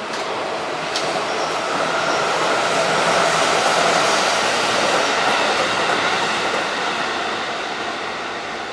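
Electric train passing close by, its wheels running on the rails. The sound swells to a peak about three to four seconds in, then fades away.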